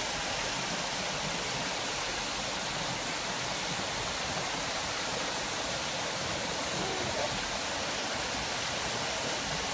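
Steady rush of water from a small rock cascade spilling into an open-air hot spring pool.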